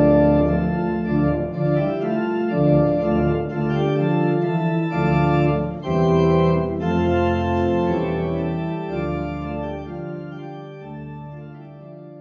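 Organ music, slow held chords moving from one to the next, fading out over the last few seconds.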